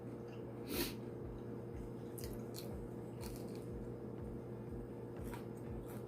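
Close-up eating of a fried shrimp po' boy: one loud crunchy bite about a second in, followed by softer chewing with a few faint crunches.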